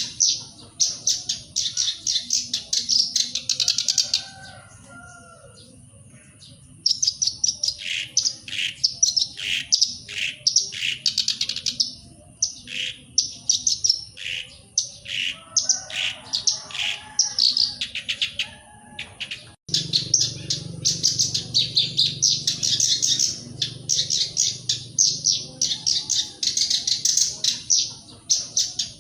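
Black-browed reed warbler singing: fast, scratchy chattering phrases with a pause of a couple of seconds a few seconds in, then a run of separate repeated notes before the dense chatter resumes. The song breaks off for an instant about two-thirds of the way through, and a faint low hum sits under it after that.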